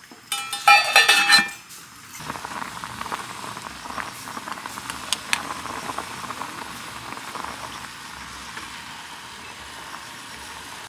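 Food sizzling and crackling steadily on a hot cast-iron cauldron-lid griddle, after a loud ringing clatter in the first second and a half.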